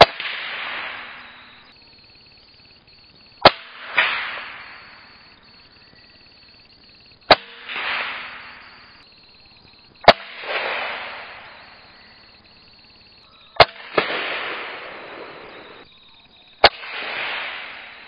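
Six sharp rifle shots a few seconds apart, taken at small tree animals. Each is followed about half a second later by a rush of noise that fades away over a second or two.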